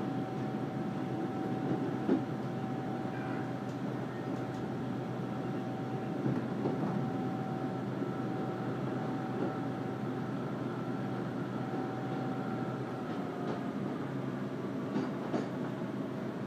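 Cabin sound of a Class 150 Sprinter diesel multiple unit under way: a steady rumble of the underfloor diesel and wheels on rail, with a steady whine that stops near the end and a few faint clicks from the track.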